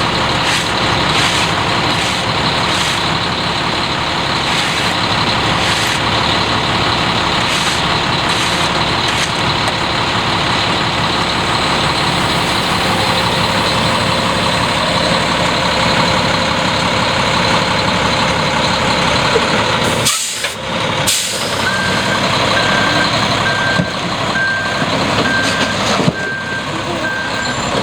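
Front-discharge concrete mixer truck running steadily at work, its engine and mixing drum making a loud, even noise. Near the end a backup alarm sounds a string of evenly spaced beeps.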